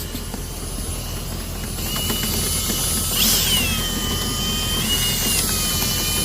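A motor running steadily with a rushing noise and a high whine that shifts pitch in steps a few times, with a brief louder burst about three seconds in.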